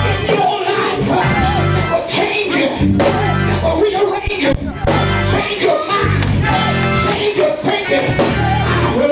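Loud live gospel praise-break music from the church band, with voices singing over a driving beat.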